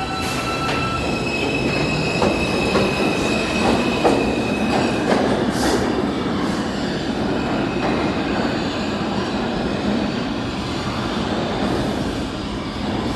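An R142 subway car running between stations, heard from inside the car with its air conditioning off. The steady rumble of wheels on rail carries a high, thin wheel squeal during the first few seconds and a few sharp clicks from the track.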